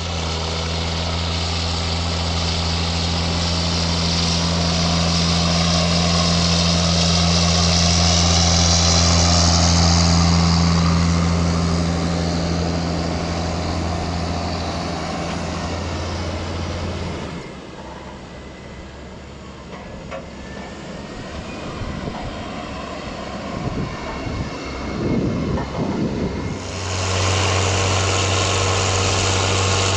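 Heavy diesel farm machinery running during corn silage harvesting: a steady engine hum grows louder and then fades over the first half. After a quieter stretch with uneven low rumbling, steady engine sound cuts back in suddenly near the end.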